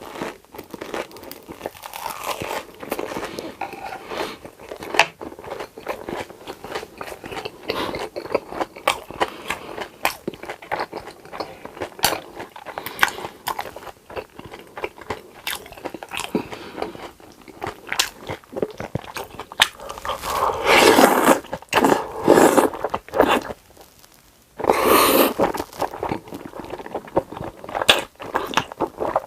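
Close-miked eating sounds: steady chewing with many wet mouth clicks, and louder crunching bites about twenty seconds in and again about twenty-five seconds in.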